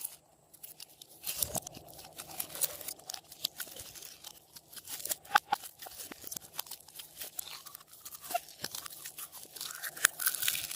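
Slime being kneaded and pressed by hand as makeup and clay are mixed in, with dense, irregular crackling and crunching clicks.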